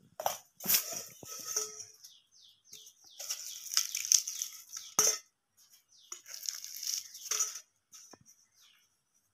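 Crisp fried samosas crushed and broken apart by hand in a stainless steel bowl: crackling pastry in three bursts, with one sharp crack about five seconds in.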